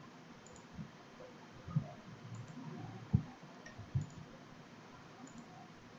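A few faint, dull computer mouse clicks at irregular intervals, the loudest just after three seconds in.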